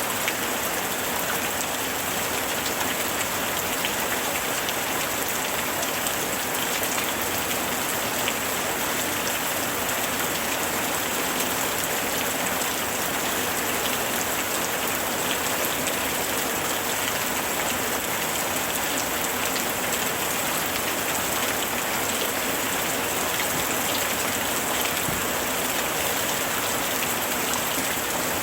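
Steady summer rain falling, a dense even hiss of rain with many fine drops pattering on surfaces.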